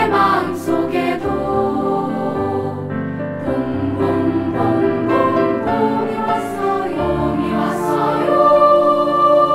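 Children's choir singing a Korean children's song with piano accompaniment, holding a long note near the end.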